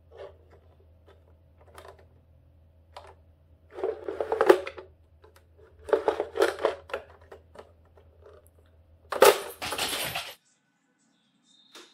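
Plastic clicks and clattering from a Nerf Dog tennis ball blaster as its orange slide is worked by hand: a few light clicks, then three louder bursts of rattling about four, six and nine seconds in, the last cutting off suddenly.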